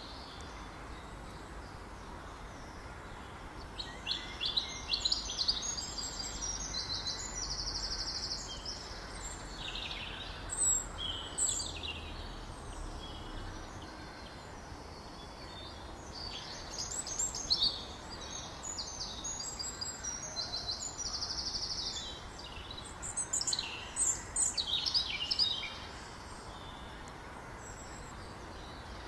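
A songbird singing: spells of high chirps and fast trills, three times, over a steady low outdoor rumble.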